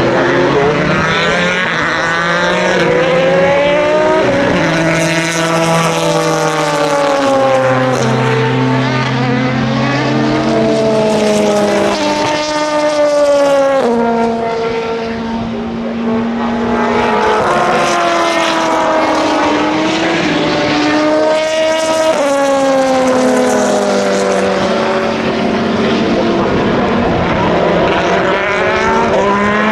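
Several endurance racing cars passing at speed, their engines running hard at high revs. The engine notes climb and drop again and again as the cars shift through the gears and go by, with two or more engines often heard at once.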